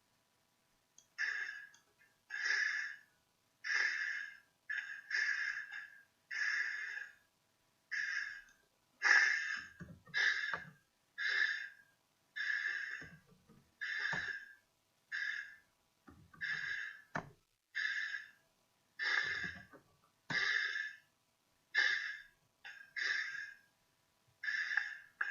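Recorded snoring: a fast, even series of short breathy snores, about one every second and a bit, some with a deeper rumble under the hiss.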